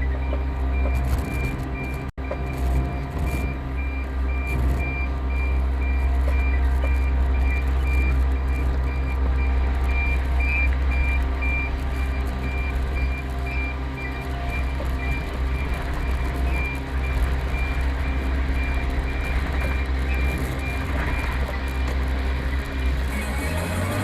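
Truck's reversing beeper sounding a steady run of high beeps over the truck's engine running as it backs up.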